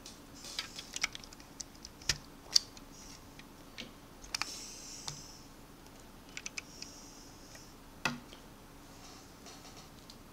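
Handling noise: scattered light clicks and taps from a hand touching the camera and the plastic Lego truck, with two short rustles about four and a half and seven seconds in.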